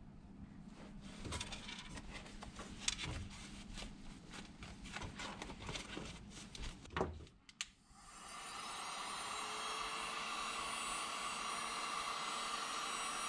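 Irregular crackling and clicking as a soccer boot with a half-removed sole is worked in the hands; about 8 s in a Black+Decker heat gun switches on, its fan spinning up into a steady blowing hiss.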